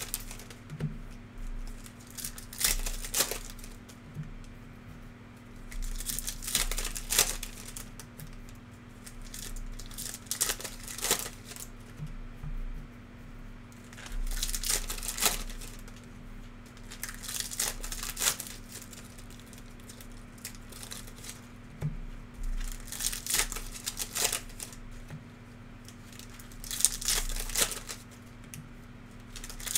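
Trading card pack wrappers being torn open and crinkled in short bursts every few seconds.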